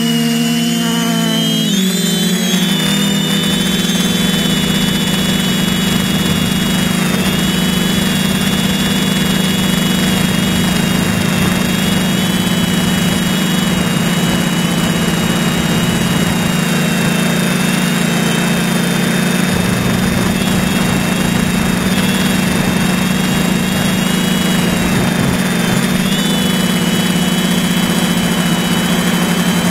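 Electric motors and propellers of a Pixhawk-controlled drone, heard from its onboard camera: a steady low hum with a high whine above it. The pitch shifts during the first two seconds, then holds steady as the drone hovers.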